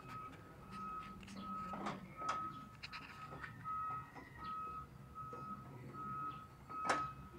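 A reversing alarm repeating a single high electronic beep about twice a second. Sharp metal knocks and clatters come in among the beeps, the loudest near the end.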